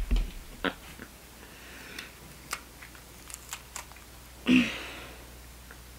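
Small scattered clicks and crackles of fingers pulling seeds out of a cut jalapeño pepper. A short breathy exhale about four and a half seconds in.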